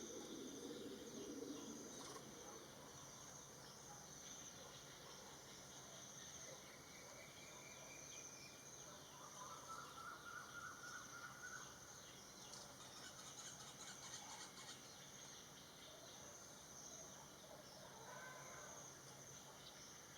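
Faint outdoor ambience of insects buzzing steadily at a high pitch, with a few soft bird calls about halfway through and again near the end.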